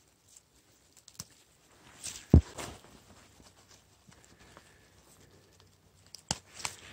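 Dry leaf litter, pine needles and twigs rustling and crackling as a gloved hand and feet move through forest undergrowth, with one heavy low thump about two seconds in and a couple of sharp clicks near the end.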